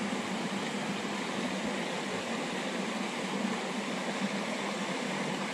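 Shallow mountain creek flowing over rock: a steady, even rush of water.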